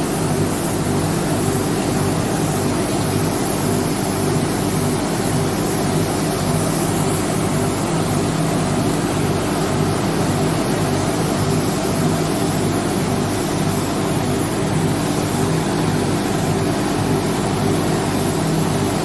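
A motor running steadily, with an even hiss over it.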